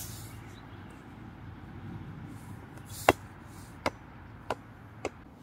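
Spiky inflatable rubber toy ball bouncing on concrete: four knocks, each quieter than the last and coming closer together as it settles, over a steady low outdoor hum.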